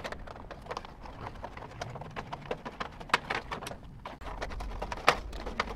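Irregular clicks and small knocks of hands working wire connectors loose inside a toaster oven's sheet-metal housing, with two sharper clicks about three and five seconds in.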